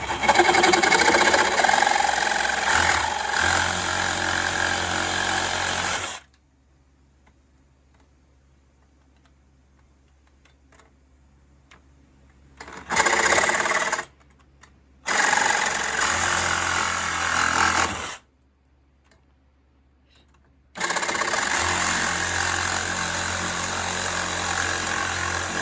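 Handheld power saw cutting off the protruding ends of steel screws, run in four bursts: the first and last several seconds long, a short one in between.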